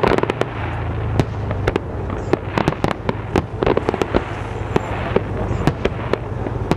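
Aerial fireworks display: a rapid, continuous series of shell bursts, with sharp bangs several times a second over steady crackling.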